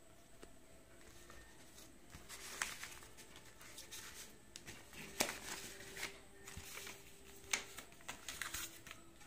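Faint rustling and sliding of paper envelopes being handled and pressed flat, with a few sharp clicks and taps scattered through it.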